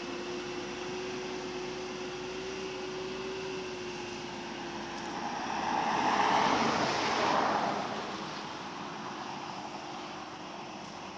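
Farm tractor engine running steadily, growing louder to a peak about six to seven seconds in as it draws close, then fading away.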